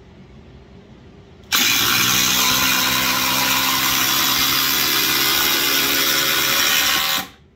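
Two cordless impact drivers, a DeWalt DCF840 and a Milwaukee M18 Fuel Gen 3, hammering at once as they drive 6-inch TimberLOK screws into stacked lumber under load. They start suddenly about a second and a half in and stop about seven seconds in as the screws seat.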